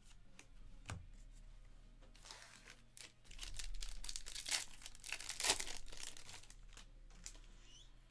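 A few light clicks, then from about two seconds in a 2022 Bowman Draft baseball card pack's foil wrapper crinkling and tearing open for several seconds, loudest in the middle.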